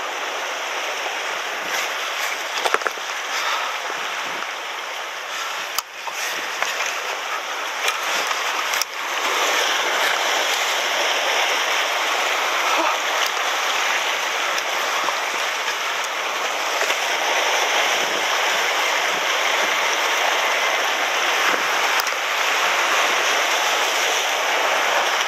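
Sea surf washing and foaming over shore rocks and concrete tetrapods as a steady rushing hiss, growing louder about nine seconds in, with a few brief knocks in the first few seconds.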